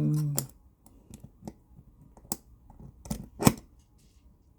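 Small metal clicks and scrapes of a bypass tool working inside a handcuff's locking mechanism, against its pawl spring. A few sharp ticks are spread out, the loudest about a second before the end.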